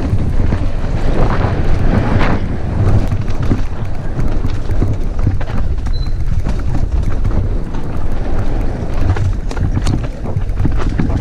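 Mountain bike descending a dirt trail at speed: wind buffeting the microphone in a heavy steady rumble, with tyres rolling over dirt and many short rattling clicks from the bike over rough ground.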